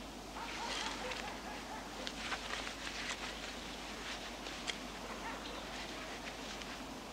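Crumpled paper crinkling and rustling as it is handled, in a run of small irregular crackles, over a faint steady low hum.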